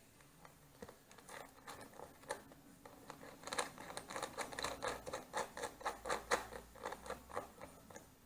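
Mounting nut of a motorcycle turn signal being tightened onto its stalk: a quick, even run of small clicks and scrapes, about four a second, louder in the middle and stopping near the end.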